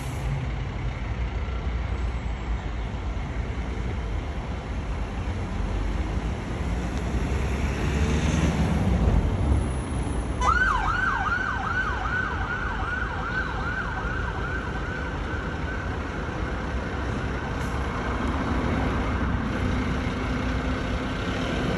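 Fire engine's diesel engine running as it pulls out of the station. About halfway through, its siren starts with a fast yelp of quick falling sweeps, about three a second, then carries on as a steadier high tone.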